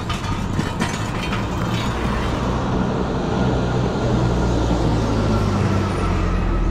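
City street traffic: a vehicle's engine rumbling low amid the hiss of passing traffic, the rumble growing stronger in the second half.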